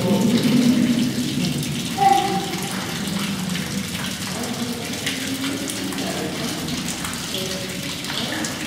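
Water from a natural spring running and trickling steadily through the rock-cut chamber, with faint voices in the background.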